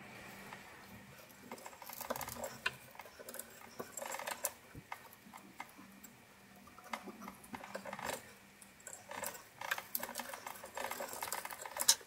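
Victorinox Swiss Army knife awl being pushed through leather and thread drawn through, with knife handling: irregular clusters of small clicks, scrapes and rustles, and a sharp click just before the end.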